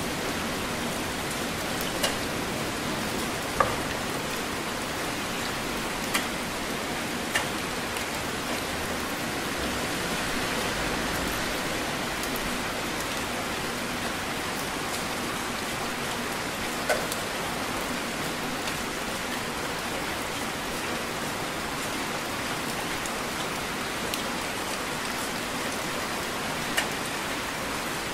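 Heavy rain falling steadily, a constant hiss, with a few sharper drops striking now and then.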